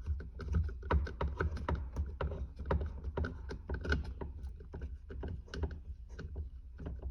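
A Phillips screw being driven by hand into a plastic center console lid latch: a run of irregular clicks, taps and scrapes from the screwdriver and the plastic parts.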